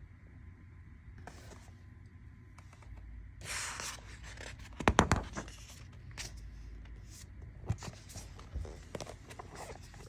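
A page of a book being turned: a paper rustle, then a few sharp knocks and taps as the book is handled, loudest about a second after the rustle.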